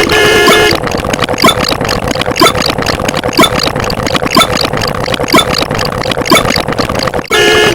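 Engine idling sound effect, a rough steady running sound with a stronger beat about once a second. A steady honking tone plays briefly at the start and returns near the end.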